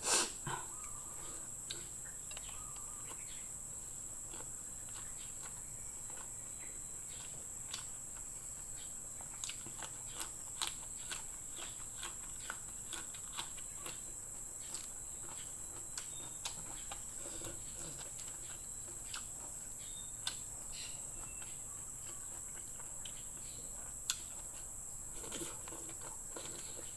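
Chewing and lip-smacking of a person eating, heard as short, scattered clicks, over a steady high-pitched chirring of insects.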